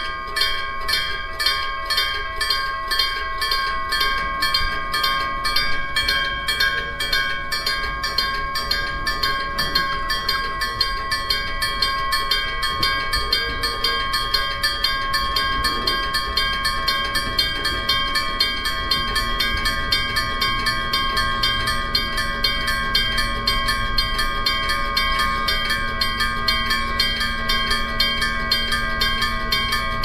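Electric-bell (denshō) level crossing bell ringing with a rapid, even strike and a ringing tone, sounding its warning for an approaching train. A train's low rumble comes in over the second half as the train draws near.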